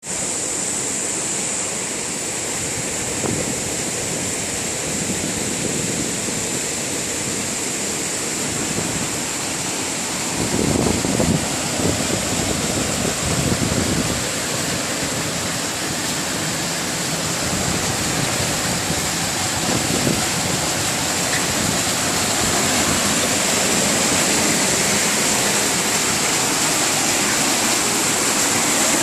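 Waterfall rushing steadily, a continuous hiss of falling water, with a few heavier low surges partway through.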